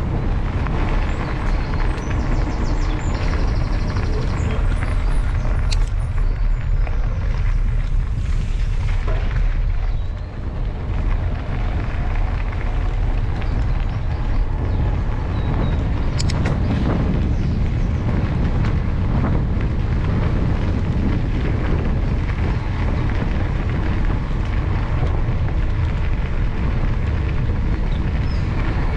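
Steady low wind rumble buffeting the microphone of a moving mountain bike, mixed with the bike's rolling noise, easing briefly about ten seconds in.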